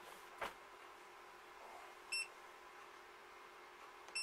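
Touchscreen control panel of a Sarki air fryer oven beeping as its buttons are pressed: two short high beeps about two seconds apart, one near the middle and one at the very end. A soft knock comes about half a second in.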